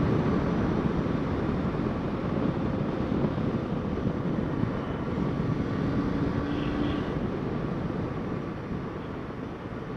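Steady wind rush over a motorcycle-mounted camera's microphone, with the motorcycle's engine running underneath as it rides along, slowly dropping in level over the last few seconds.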